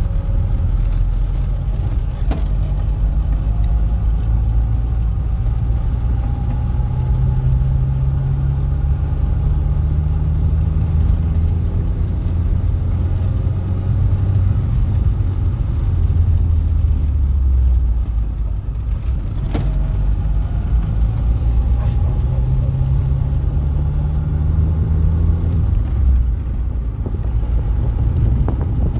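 Car engine and road noise heard from inside the cabin while driving, with a steady low rumble. The engine note rises slowly as the car gathers speed and drops back twice, once about two-thirds of the way through and once near the end. Two brief clicks occur along the way.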